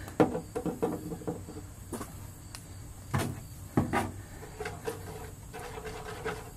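Handling noise of a man's hands and a small plastic epoxy container on a bare steel car floor pan: a few sharp clicks and knocks. A faint steady tone comes in about four and a half seconds in.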